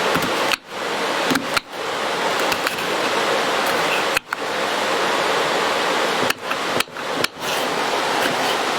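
A steady rushing hiss, broken several times by brief sudden dropouts, with a few faint knocks.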